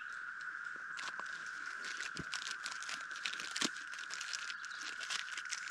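Crinkling and crackling of a plastic snack wrapper being handled, a rapid irregular run of sharp clicks that starts about a second in. Under it, a steady high-pitched drone from the surrounding forest.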